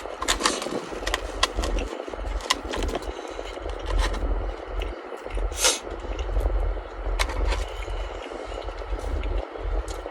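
Eating and handling noises from a Korean corn dog mukbang: scattered crunchy clicks and scrapes over a steady low rumble on the microphone.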